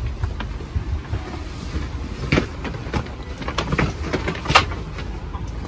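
Low steady rumble of an airliner cabin with scattered knocks and clatter of passengers handling bags from the overhead bins; one sharper knock about four and a half seconds in.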